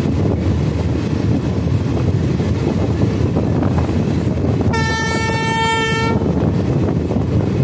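Running noise of a passenger train heard from its open coach door, a steady rumble of wheels on rail. About five seconds in, a locomotive horn sounds one steady single-pitched blast lasting about a second and a half.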